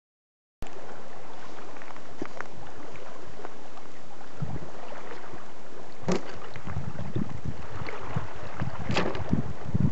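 Wind buffeting the microphone, starting after a brief silence, with two sharp hits about six and nine seconds in as a homemade forged knife is stabbed through a plastic pop bottle full of water.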